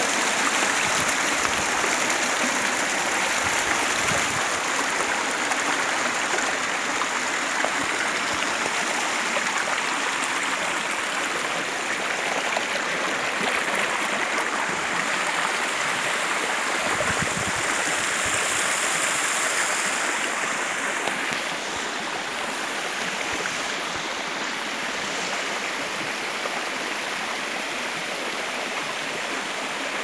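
Waterfall water rushing and splashing over rocks, a steady rush of noise that drops a little in level about two-thirds of the way through.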